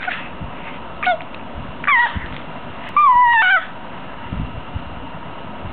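Infant cooing and squealing in high-pitched wordless babble: a short call about a second in, a falling call around two seconds, and a longer wavering call about three seconds in.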